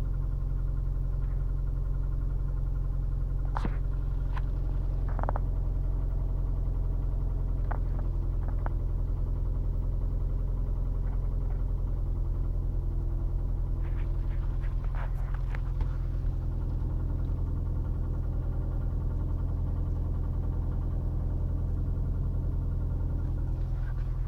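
Subaru EJ16 flat-four boxer engine idling steadily with a clear, rhythmic knock.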